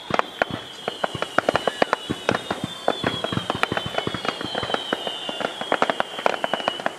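Fireworks going off in a rapid run of sharp bangs and pops, with several long whistles sliding slowly down in pitch over them. The barrage stops abruptly at the end.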